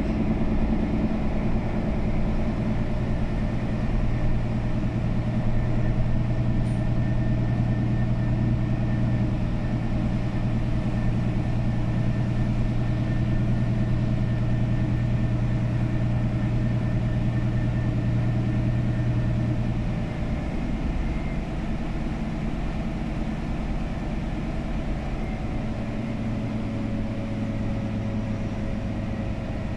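Mercedes-Benz Citaro O530G articulated city bus heard from inside the passenger cabin while driving: a steady low engine and drivetrain hum with a fainter whine above it. About two-thirds of the way through, the low hum drops away and the overall sound gets a little quieter.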